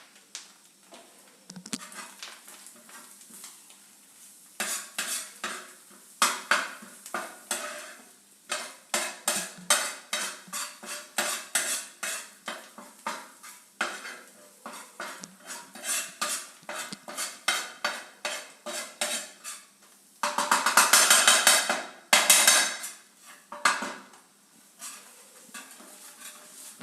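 A spoon mixing the spiced egg-yolk and peanut-powder stuffing in a bowl: quick repeated clinks and scrapes against the bowl, with a louder stretch of fast scraping about twenty seconds in.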